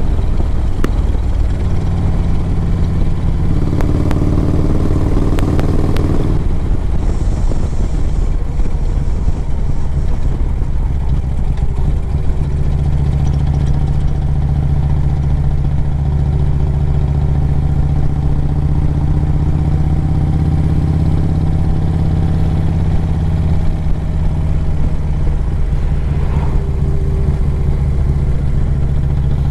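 Harley-Davidson Screaming Eagle 113 cubic-inch V-twin running on a Road Glide under way, heard from the rider's seat with a loud exhaust. Its pitch climbs a little in the first few seconds, then settles into a steady cruise.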